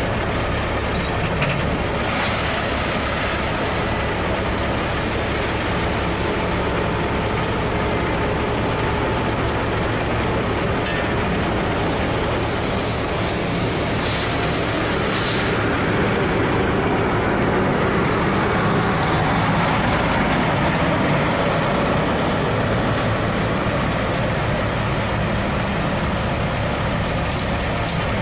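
Heavy diesel engines of an excavator and a dump truck running steadily while the excavator loads the truck. A loud hiss lasts about three seconds near the middle.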